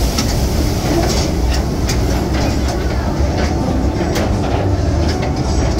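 Calico Mine Ride ore-car train rolling along its track: a steady low rumble with scattered clicks and clacks from the wheels.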